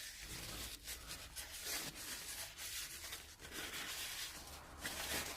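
Faint, irregular rubbing and wiping as pushed-out old grease is cleaned off an idler pulley's freshly greased bearing.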